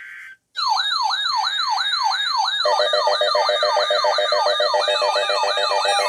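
Electronic EAS alert siren: a clean synthetic tone sweeping rapidly up and down a few times a second, starting after a brief silence. About two and a half seconds in, a lower, fast-pulsing tone joins it, layering the alarm.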